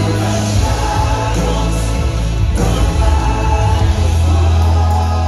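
Live worship band and group of singers performing a contemporary gospel worship song, with a steady bass line and keyboard under the voices.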